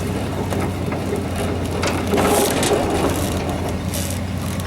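A vehicle engine running steadily, with irregular crunching noises over it, loudest around the middle.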